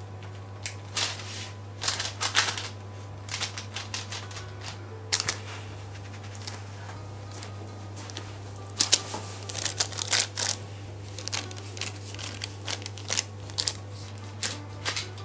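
Hands pressing and crimping the rim of flatbread dough on a parchment-lined metal baking tray: irregular sharp taps and crinkles from the baking paper and tray, coming thick and fast in the second half, over a steady low hum.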